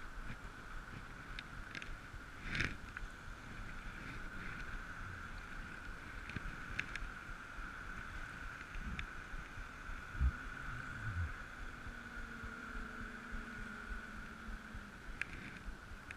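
River water moving and lapping close by, with a steady high-pitched hum throughout, a few light clicks, and a dull knock about ten seconds in.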